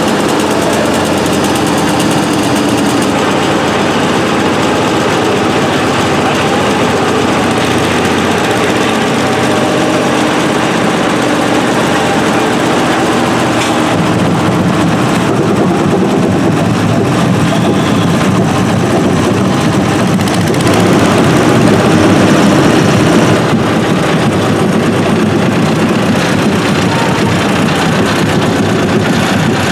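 Engines of vintage road rollers running as the machines drive slowly past one after another. A heavier, deeper engine takes over about halfway through and is loudest a little past two-thirds of the way, as a large Kemna road roller passes close by.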